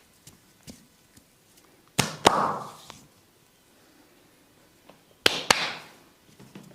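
A massage therapist's hands slapping and rubbing the client: two quick sharp slaps followed by a short swishing rub, heard twice about three seconds apart, with faint light taps between.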